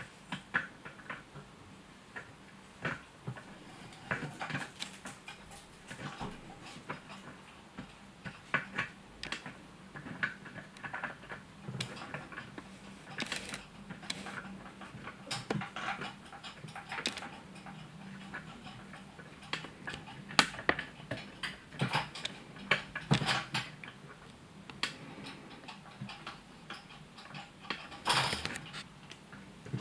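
Irregular clicks and taps of a kitten's paws and claws on a tabletop and against a plastic spinning-butterfly cat toy, with a faint steady hum beneath.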